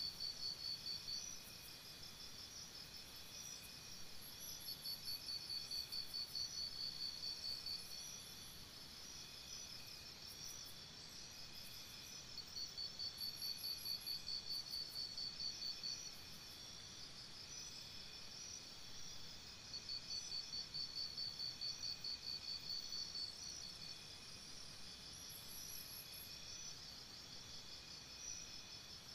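A steady chorus of chirping insects, with a louder rapid pulsed trill that comes in bouts of three to four seconds about every eight seconds.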